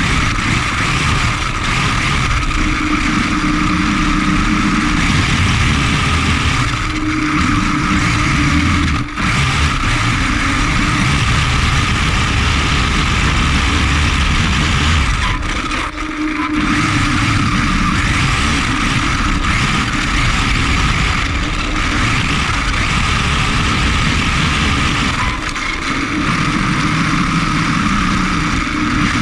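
Electric motor and gear drivetrain of an HSP XSTR Pro RC buggy running on a 3-cell LiPo, heard from a camera on the car: a steady whine over the rush of the tyres on grass. The sound dips briefly twice.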